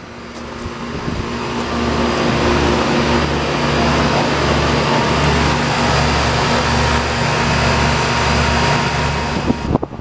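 Outdoor air-conditioner condenser unit running: a steady fan whir over a low compressor hum. It grows louder over the first two seconds and drops away sharply near the end, with a few knocks.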